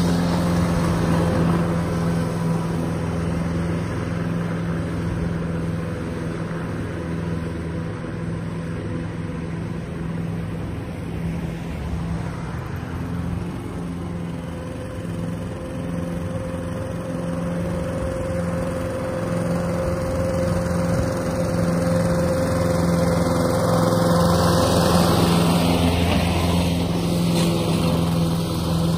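Toro ProStripe 560 walk-behind rotary mower running steadily while it cuts grass very short. The engine grows fainter as the mower moves off, then louder again as it comes back in the last few seconds.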